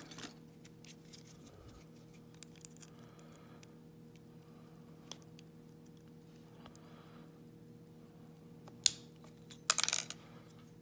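Light metallic clicks and scraping as a tool works the retaining clip off the back of an Iseo lock cylinder, with a few sharp, louder metal clacks about nine and ten seconds in.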